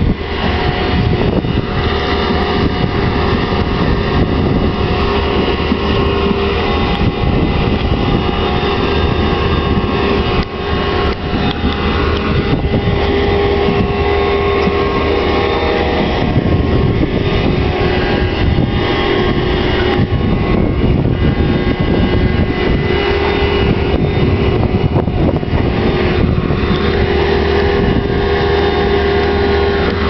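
Ropa Maus sugar beet cleaner-loader working a beet pile: its diesel engine running steadily under load along with the rumble of its pickup and conveyors, loud and unbroken with a steady hum.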